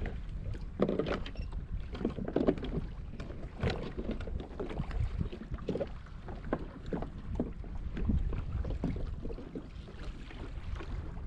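Wind buffeting the microphone while small waves slap against a plastic fishing kayak's hull, with irregular light knocks and splashes throughout.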